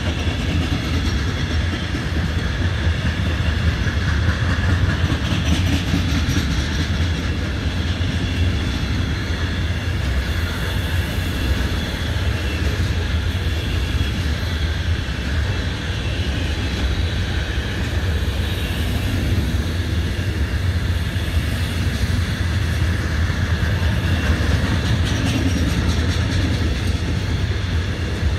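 Intermodal freight train of pocket wagons loaded with lorry semitrailers rolling steadily past, its wheels on the rails making a constant low rumble.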